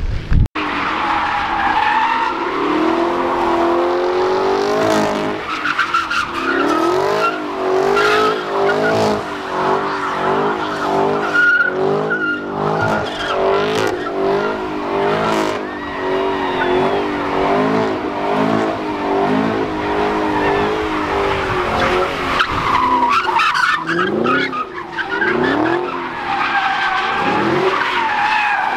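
A car doing donuts, its tyres screeching and smoking as it spins while the engine is held at high revs. The pitch wavers up and down with each spin, and the engine is revved up several times near the end.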